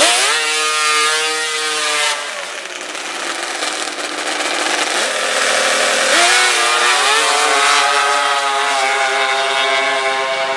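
Drag-racing snowmobile engine revved hard for about two seconds, then dropping back. About six seconds in it revs up again and holds a high, steady pitch under full throttle as the sled launches down the strip.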